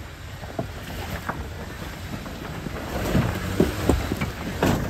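Jeep Gladiator engine running low and slow as the truck crawls over rocks, with wind buffeting the microphone. Scattered knocks and clunks come through, more of them in the second half.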